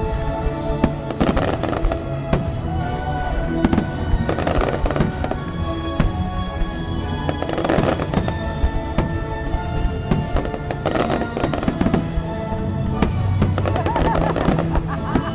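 Fireworks bursting in a rapid, irregular run of bangs and crackles, over loud music playing throughout.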